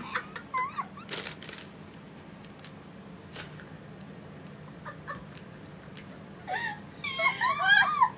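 A few crinkles and clicks of a plastic snack bag, then, about six and a half seconds in, a loud run of high-pitched squealing laughter from a woman.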